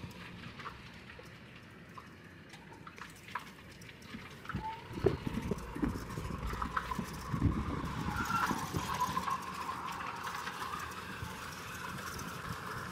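Golf cart driving along, its body and canopy knocking and rattling over the pavement, with the sharpest knock about five seconds in and the noise getting busier after about seven seconds.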